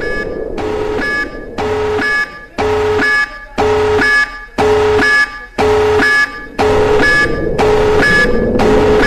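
Two-tone alarm signal pulsing about once a second, each pulse a high tone dropping to a lower one with a buzzy edge, repeated about nine times.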